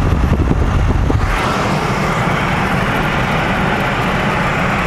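Road noise heard from inside a moving car: a deep rumble for about the first second, then a steady rush of tyres and engine at cruising speed.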